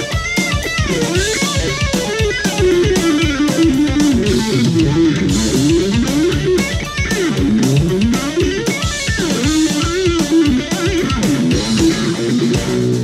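V-shaped electric guitar with humbucker pickups played through an amplifier, picking melodic runs that rise and fall. Underneath is a backing track with a steady drum beat and bass.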